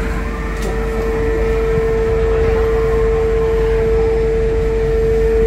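Steady mechanical hum inside the Ocean Express funicular car as it arrives at the station, with one constant mid-pitched tone over a low rumble.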